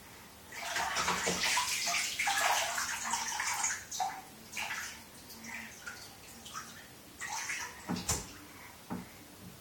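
Bathwater splashing in a bathtub as a toddler slaps and churns it: a loud flurry of splashes for the first few seconds, then smaller intermittent splashes. A sharp thump comes about eight seconds in, with a lighter one just after.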